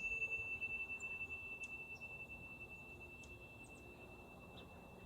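A single struck metal chime ringing out, one high clear tone fading slowly. A few faint, short, high chirps sound in the background.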